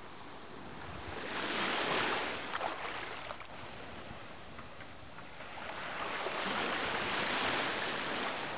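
Small waves washing up on a sandy beach: a hiss of surf that swells and falls back twice, once about a second and a half in and again, longer, from about six seconds in.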